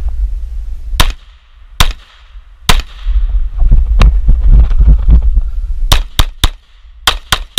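Glock 19 9mm pistol firing about nine shots in an irregular string, singles at first and then two quick pairs or triples near the end, with a low rumble on the microphone between shots.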